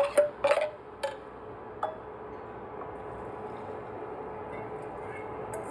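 A metal spoon stirring hot chili oil in a steel saucepan, clinking and scraping against the pan several times in the first second. A steady soft hiss follows.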